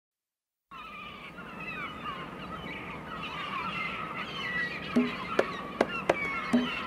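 Many birds chirping and calling together, starting about a second in; about five seconds in, a rhythm of sharp percussive knocks, roughly two to three a second, joins them.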